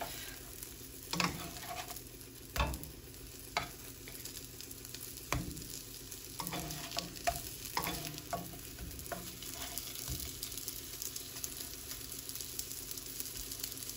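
Beef burger patties sizzling as they fry in a nonstick pan, while a spatula is slid under them and flips them, scraping and tapping against the pan in a series of sharp knocks.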